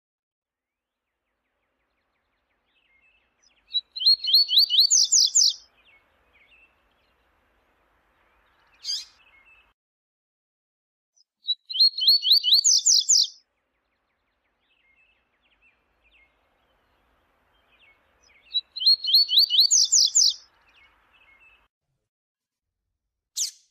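Double-collared seedeater (coleiro) singing: three short phrases of rapid repeated notes that climb in pitch, each lasting about a second and a half and spaced about seven seconds apart. A single sharp call note falls between the first two phrases and another comes near the end.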